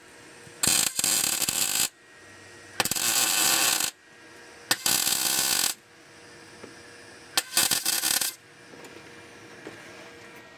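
Electric arc welding of a 2.5 mm steel plate into a car's front lower chassis panel: four short welds, each about a second long, with brief pauses between them.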